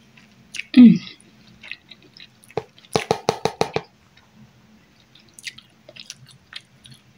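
Close mouth sounds of a person chewing food: scattered wet clicks, with a quick run of sharp smacking clicks about three seconds in. A brief hummed voice sound comes just under a second in.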